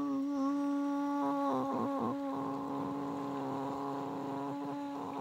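A long held tone, steady in pitch with several overtones above it, sounding throughout and wavering briefly about two seconds in.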